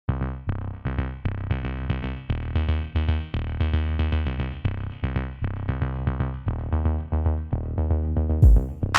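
Electronic background music: a synthesizer and drum machine with a steady beat and heavy bass, with a brighter drum hit and cymbal coming in near the end.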